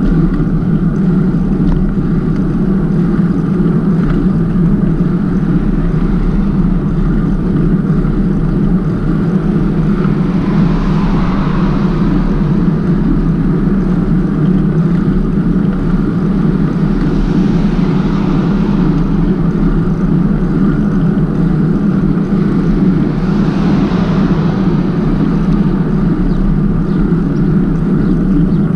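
Steady low rumble of wind and road noise on the microphone of a bicycle being ridden. Three passing vehicles swell and fade, about ten, seventeen and twenty-three seconds in.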